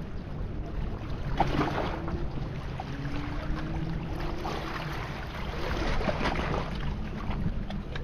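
Small sea waves washing and splashing over shoreline rocks, about three louder washes, over a steady low rumble of wind on the microphone. A faint steady hum sounds through the middle.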